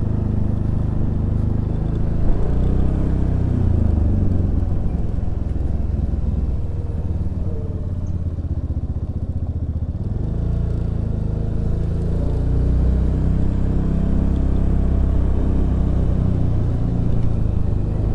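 Suzuki Burgman Street 125 scooter's single-cylinder engine running under way, its note rising and falling with the throttle.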